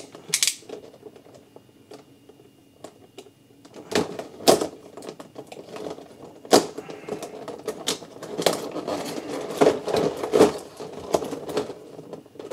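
Hands working at a taped toy box and its packaging: scattered clicks, scratches and crinkles as the tape is picked at and the packaging opened, sparse at first and busier from about four seconds in.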